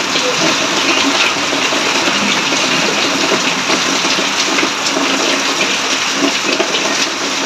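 Steady rush of heavy rain pouring down and splashing, with small irregular spatters of water.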